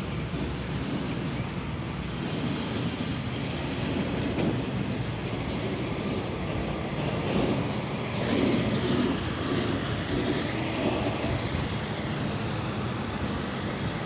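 Semi truck's diesel engine running close by, a steady heavy rumble that grows louder for a while about eight seconds in.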